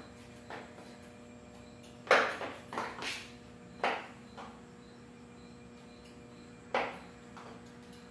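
Stiletto heels of strappy sandals striking a concrete floor in sharp clacks: a quick run of them between about two and four and a half seconds in, and another loud one near seven seconds.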